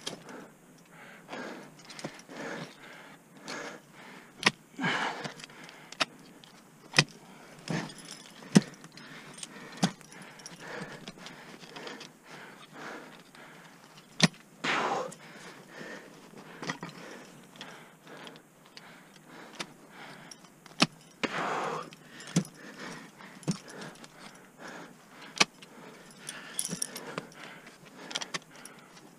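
Ice axes and crampons striking snowy ice in sharp, scattered hits while a lead ice climber moves up, with climbing hardware such as carabiners jangling on the harness.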